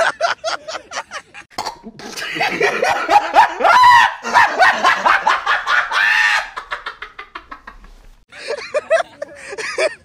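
A group of people laughing together, with overlapping voices. The laughter comes in quick repeated pulses, swells into a loud burst of several voices from about two to six seconds in, trails off, and voices pick up again near the end.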